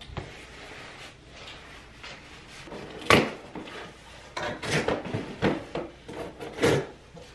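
Cardboard shipping box set down on a wooden table with one sharp knock about three seconds in, then a run of shorter knocks, scrapes and rustles as the box is torn open.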